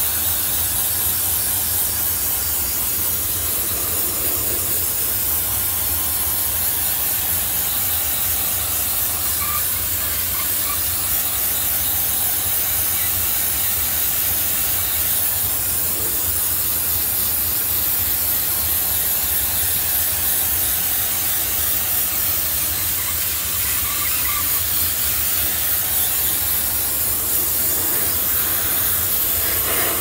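High-pressure steam jetting from the wand of an Optima CMF diesel steam cleaner onto an air-conditioner condenser coil: a steady, loud hiss with a low rumble beneath it.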